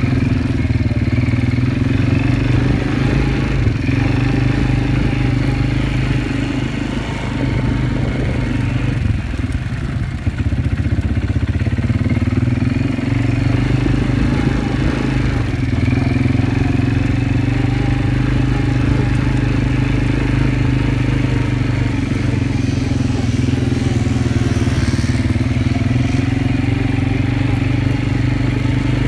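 ATV quad bike engine running under throttle as it is ridden across sand, heard close from the rider's seat. The engine eases off for a few seconds about a third of the way in, then picks up again, its pitch rising and falling with the throttle.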